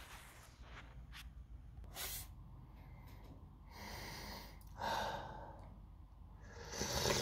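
A person sniffing green tea in a glass, with several breathy inhales over the rim. A louder slurping sip comes near the end, as the glass reaches the lips.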